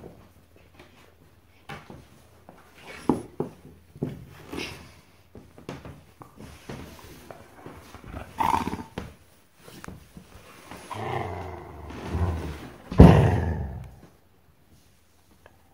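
Dog growling in play while tugging on a rope toy, in uneven bursts that grow louder and longer near the end.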